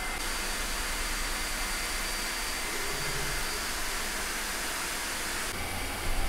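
Elegoo Neptune 4 3D printer running a print: a steady whirring of its cooling fans, with a faint high tone over it in the first half.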